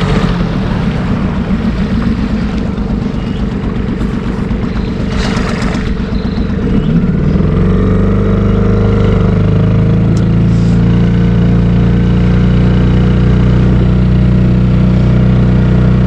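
Yamaha 3 hp outboard motor running under way, pushing a small inflatable boat. Its note is uneven for the first several seconds. About seven seconds in it rises and settles into a steady, louder run.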